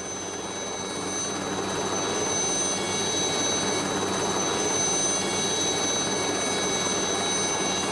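A helicopter's turbine engine running on the ground before take-off: a steady high whine over a rushing noise. It grows louder over the first few seconds, then holds steady.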